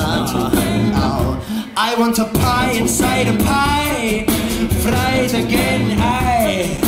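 Funk groove made by voice: a looped beatboxed beat with wordless sung vocal lines, wavering with vibrato, over it.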